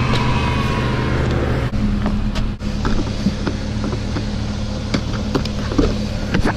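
Ford Super Duty pickup truck idling with a steady low engine hum. Several sharp clicks and knocks come over it as the rear door handle is pulled and the door swung open.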